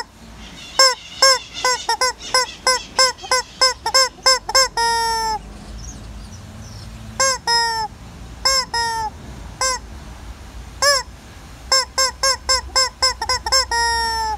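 Hen cackling: two fast runs of short, clipped calls, each ending in a longer drawn-out call, with a few single calls in between.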